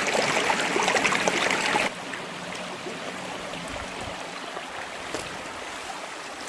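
Water of a shallow stream running over rocks, a steady rushing that drops suddenly to a quieter level about two seconds in.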